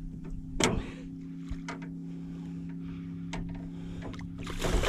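Boat motor running with a steady low hum, with a few sharp clicks over it and a louder rush of noise near the end.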